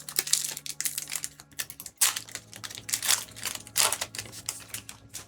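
Pokémon TCG booster pack foil wrapper crinkling and tearing open, in dense crackling bursts in two long spells.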